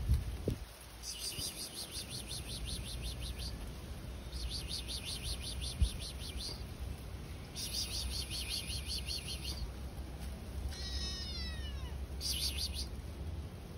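A fast, high-pitched pulsed chirping trill in four bursts of about two seconds each, the last one shorter, over a steady low rumble. A short falling call comes about eleven seconds in, and a single soft thump near six seconds.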